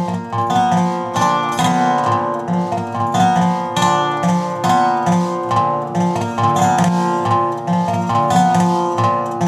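Dobro (resonator guitar) played solo, fingerpicked: a steady, continuous run of plucked, ringing notes over a recurring lower bass-note pattern.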